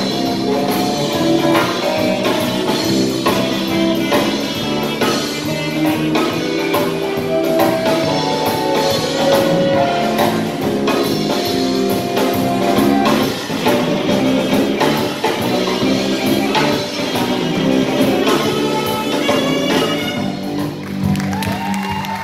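Live jazz band of saxophones, electric guitars, bass, keyboard and drum kit playing together, with held horn notes over a steady drum groove. The playing thins out near the end.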